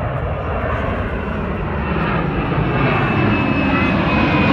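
Twin-engine jet airliner climbing out overhead after takeoff: a steady roar from its engines that grows slightly louder, with a thin high whine slowly falling in pitch.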